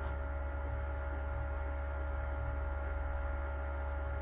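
Steady electrical hum with a faint even hiss, made of a low buzz and a few thin higher tones that do not change.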